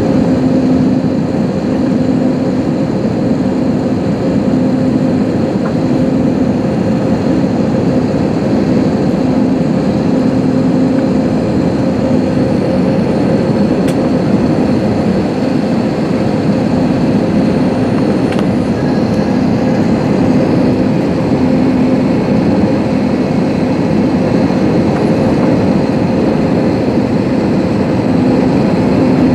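Airbus A320neo cabin noise on the descent to land: a steady rush of engine and airflow, with a low hum that swells and fades every second or two.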